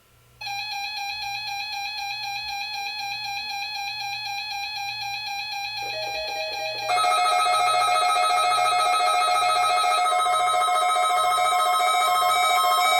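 Electronic music: a sustained pitched tone with overtones starts about half a second in, and further tones layer in around six and seven seconds, the sound getting louder at each entry.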